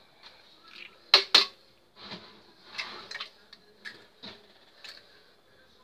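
Egg being cracked into a plastic blender jug: two sharp taps of the eggshell on the jug about a second in, then a few lighter knocks and clicks as the shell is broken and handled.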